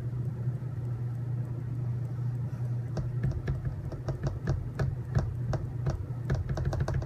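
Small clicks and knocks from parts of a robot kit being handled and fitted together, coming thick and irregular from about three seconds in, over a steady low hum.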